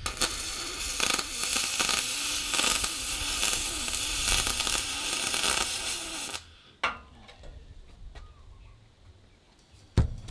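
MIG welding arc on aluminum, a steady crackling hiss that runs for about six seconds and then stops. A click follows, and a sharp knock comes near the end.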